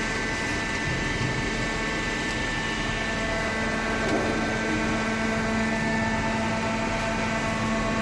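Hydraulic power unit of a single-cylinder vertical scrap baler running: a steady motor hum with a constant pump whine over it.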